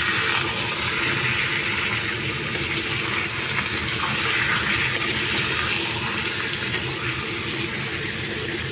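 Raw chicken pieces sizzling in hot oil and masala in an aluminium kadai as they are stirred, a steady hiss. This is the start of frying (bhuna) of a chicken curry.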